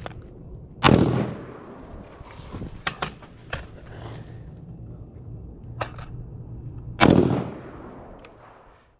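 Two rifle shots from a Rock River CAR A2 AR-15 carbine, about six seconds apart: the first about a second in, the second near the end, each with a long trailing echo. A few lighter clicks and knocks fall between them, and the sound fades out at the end.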